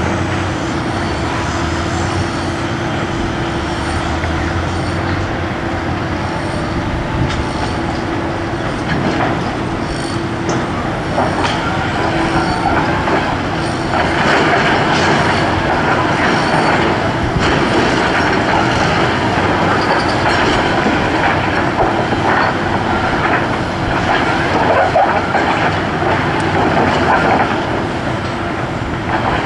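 Drilling rig's diesel engine and hydraulics running steadily while the kelly bar is lowered into the steel casing, with scattered metal knocks and a louder grinding from about halfway through.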